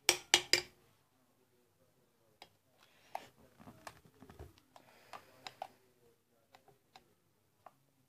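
Screwdriver tip clicking sharply a few times against a ceiling fan's motor-cover screw at the start, then faint scattered ticks and scrapes as the stuck screw is worked at without coming loose.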